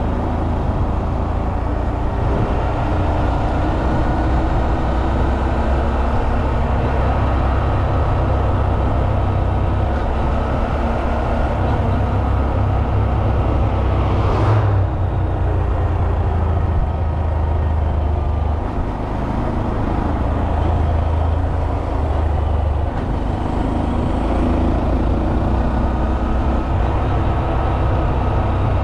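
Honda Monkey 125's single-cylinder four-stroke engine running steadily under way, heard from on board the motorcycle as a low, even rumble. A brief rushing sound rises and fades about halfway through.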